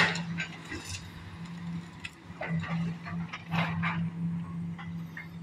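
Demolition excavators working a collapsed building: a steady diesel engine drone, with scattered knocks and clatter of falling debris and metal. A sharp knock comes right at the start.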